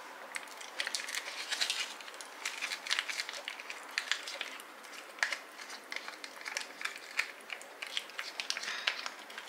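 Foil sachet crinkling and crackling as a small spatula stirs powder into thick cream inside it, a steady run of irregular small clicks.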